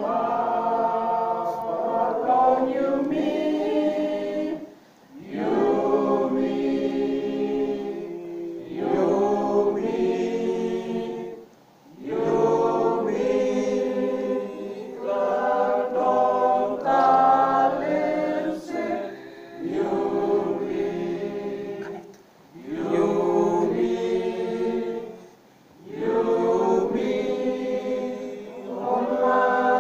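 A group of people singing together in chorus without instruments, in phrases of several seconds with short breaks between them.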